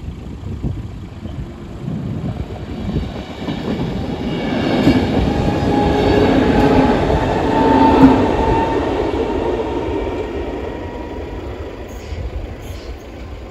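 A passenger train passing on the track: its noise builds to its loudest about eight seconds in, then fades as it moves away.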